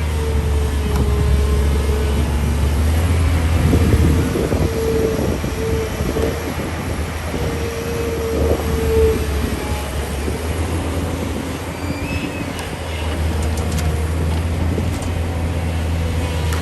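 Excavator's diesel engine running steadily, with a hydraulic whine that comes and goes during the first half as the arm works. Irregular crackling and creaking are heard between about 3 and 9 seconds in.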